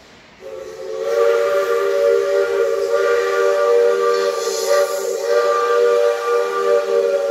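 Steam whistle of the Shay geared locomotive No. 1 Dixiana blowing one long, loud blast of several tones sounding together, starting about half a second in.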